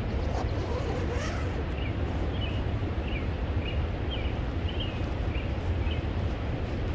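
Steady rush of running water, with a small bird calling a run of about eight short, high chirps in the middle.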